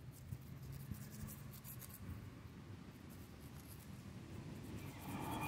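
Dry twig scratching and scraping on asphalt in short, faint strokes as it is dragged to tease a cat. Near the end a steady rushing grows louder.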